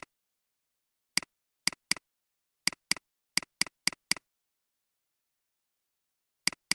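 Computer mouse button clicks, mostly quick double-clicks a quarter second apart, opening folder after folder in a file dialog: about five double-clicks, with dead silence between them.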